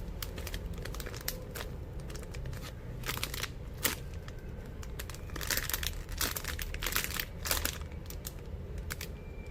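Crinkling and rustling in short irregular bursts as a squishy toy and its packaging are handled, over a low steady hum.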